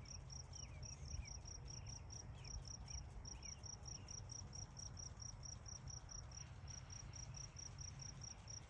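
Cricket chirping steadily in an even rhythm, about five chirps a second, over a faint low rumble.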